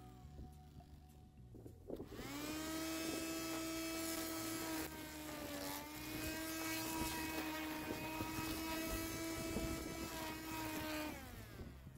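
Hecht 630 600-watt electric string trimmer switched on about two seconds in: the motor whines up to speed and runs with a steady high whine while the line cuts grass along a lawn edge. The pitch sags briefly about halfway, and near the end the motor winds down.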